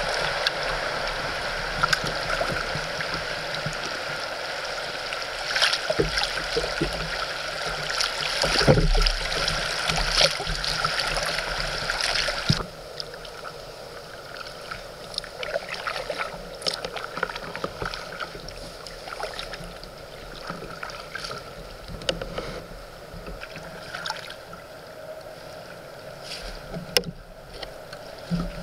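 River water rushing and rippling around a kayak, with occasional splashes and knocks. The rushing drops off suddenly about halfway through, leaving quieter water.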